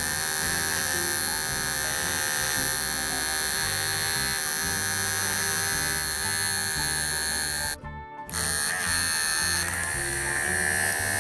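Wahl Bravura cordless clipper running at speed with a freshly sharpened 5-in-1 blade, a steady hum, as test string is fed into the blade. It cuts out for a moment about eight seconds in, then runs again.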